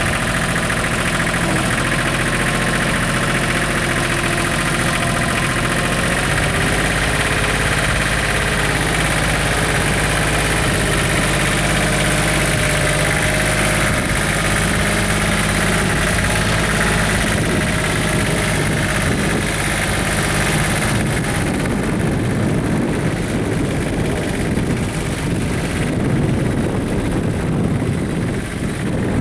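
A 4x4 tractor's engine running steadily at idle. About two-thirds of the way through, the sound changes: the high hiss drops away and a rougher low rumble takes over.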